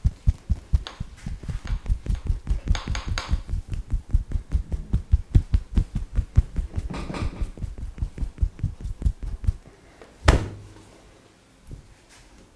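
Hands beating rapidly and rhythmically on a person's body in a percussive massage, about five dull thumps a second, stopping just before ten seconds in. A single sharp smack follows shortly after.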